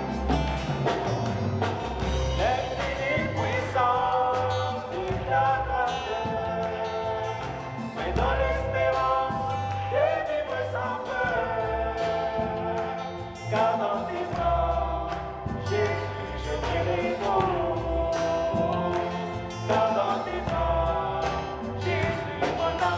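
Live gospel song: a woman and a man singing into microphones over a band with electric guitar and drums, with a steady line of low bass notes beneath.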